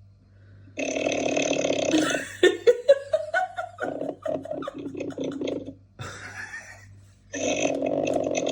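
A person snoring loudly in long, rattling snores, three of them in a row. Between the first two is a shorter sound that rises in pitch.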